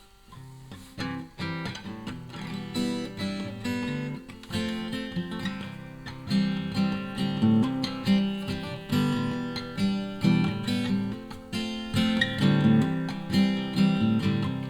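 Acoustic guitar intro, chords strummed and picked in a steady rhythm, swelling in loudness over the first few seconds.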